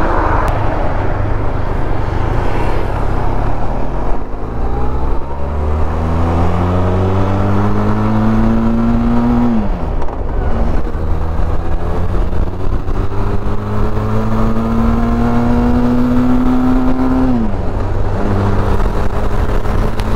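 Motorcycle engine accelerating through the gears: the note climbs steadily, drops sharply with an upshift about halfway through, climbs again and drops with a second upshift near the end, then holds steady. Wind rumble runs underneath.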